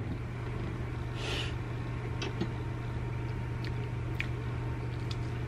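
A steady low hum, with a short soft slurp from a mug about a second in and a few faint clicks.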